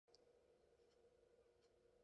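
Near silence: room tone with a faint steady hum and a few tiny clicks.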